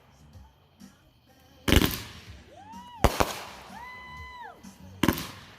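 Consumer fireworks cake (a two-minute show) firing: three sharp bangs a second or two apart, each trailing off into crackle, with two short whistling tones between them.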